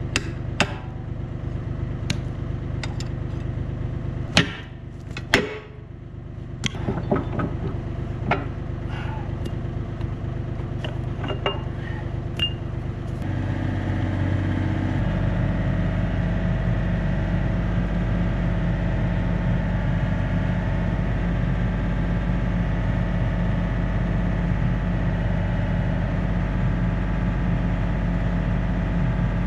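Yanmar B37 mini excavator's diesel engine idling, with sharp metal clinks and knocks through the first half as a steel bar is worked on the bucket pins. About halfway through, the engine note changes and then runs on steadily and a little louder, with no more knocks.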